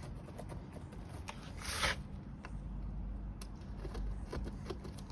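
Scattered light clicks and taps of hand work on a plasterboard wall and its screw fixings, with one short scrape about two seconds in.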